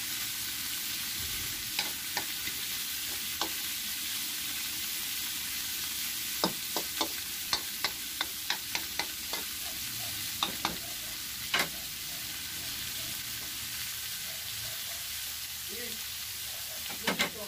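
Pork and water spinach stems sizzling as they are stir-fried in a pan, with a steady hiss. A utensil clicks against the pan in a quick run of about three taps a second about six seconds in, with a few louder knocks later.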